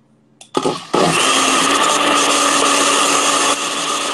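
Countertop blender switched on about half a second in and running steadily with a constant hum, blending a thick peanut cake batter; the sound drops a little about three and a half seconds in.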